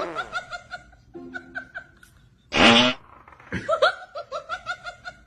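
Prank fart sounds: a run of short, rapid pitched pulses, a loud sputtering burst about two and a half seconds in, then another quick run of pulses.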